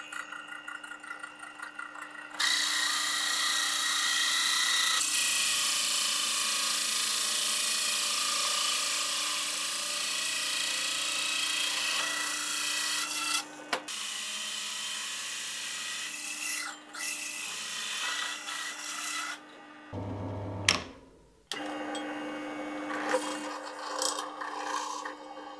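Drill press motor running with a steady hum as a hole saw cuts into plywood: a loud, even rasping cut starts about two seconds in, eases off after about eleven seconds and runs on more lightly. After a brief break near the end, the drill press runs again while a twist bit drills through a stack of plywood discs.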